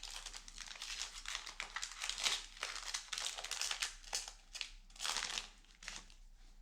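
Disney Lorcana booster pack wrapper crinkling as it is handled and opened: an irregular run of rustles and crackles.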